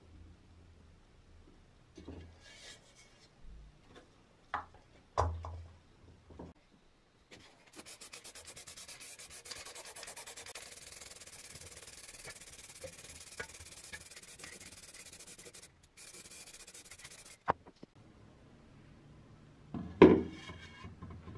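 Aerosol spray paint can hissing in a steady spray for about ten seconds, with a brief break near its end, as paint is sprayed into the inside of a steel helmet. Before it come light knocks and clicks of handling, and near the end there is a loud knock.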